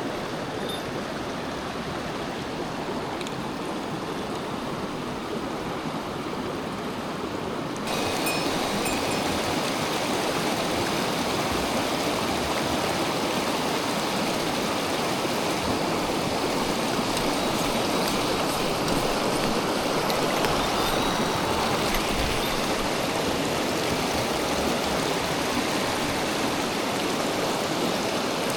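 Mountain stream rushing over rocks in a steady, even wash of water. It gets louder and brighter about eight seconds in.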